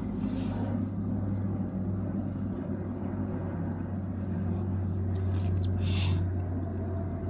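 Steady low rumble, with a few light clicks and a short rustle about six seconds in.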